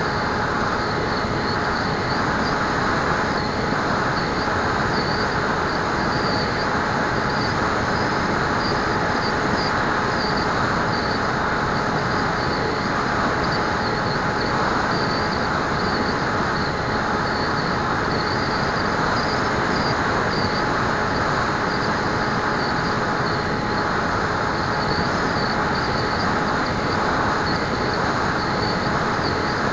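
Bixler model plane in flight, heard through its onboard camera's microphone: a steady rush of airflow with the constant hum of its electric motor and propeller.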